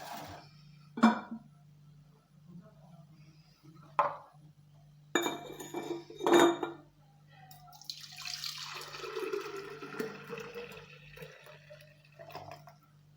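Homemade lemon and apple juice poured into a glass for about two and a half seconds, after several clinks and knocks of glassware and dishes.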